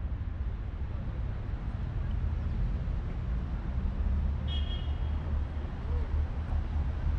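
Steady low outdoor rumble of traffic or wind, with one short high-pitched toot about four and a half seconds in.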